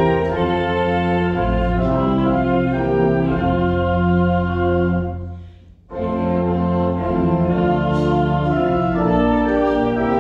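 Church organ playing sustained chords, with a brief break just before six seconds in before the music continues.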